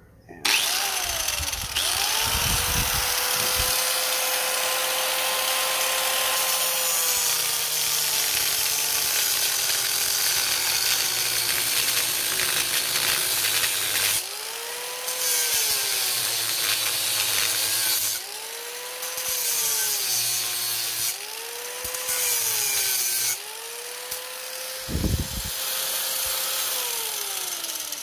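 Corded angle grinder cutting a flat spot into the steel freewheel on a Razor MX650 rear hub. The motor's whine sags in pitch as the disc is pressed into the metal and climbs back when it eases off, several times over, above a harsh grinding hiss.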